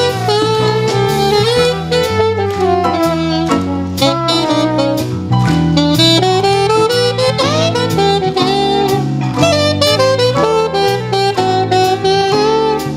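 Saxophone playing a jazz melody over a backing of bass and drums.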